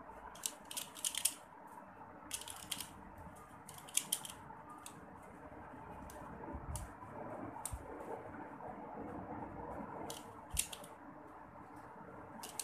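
Plastic pyraminx puzzle being turned by hand: irregular sharp clicks of its pieces snapping round, some in quick clusters and some single, with pauses between.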